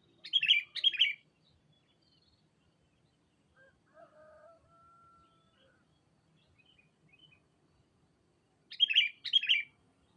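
Sooty-headed bulbul (kutilang) calling: a loud two-note phrase just after the start, repeated near the end. About four seconds in, a fainter, lower, drawn-out call from another bird.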